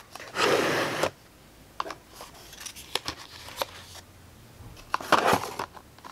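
Makeup products and small plastic organizer trays being handled and set down in a drawer: light plastic clicks and knocks throughout, with two louder spells of rustling, one about half a second in and one about five seconds in.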